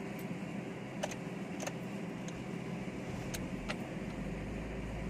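Ford EcoSport engine starting and settling into idle, heard from inside the cabin, with a few light clicks.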